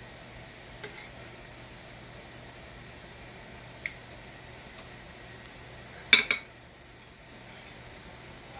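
A few light clinks of a metal spoon and dishes, then a louder double clatter of dishes about six seconds in.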